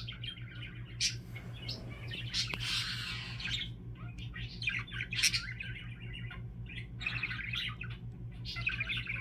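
Budgerigar chattering and warbling in quick, broken runs of chirps and squeaks, over a steady low hum.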